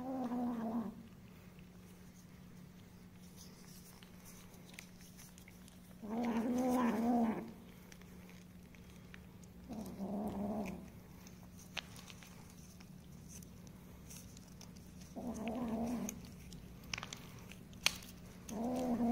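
Stray cats meowing while being fed a squeezed-out cat treat: five separate meows about a second long, spaced a few seconds apart, calling for the food. A few faint clicks fall between them.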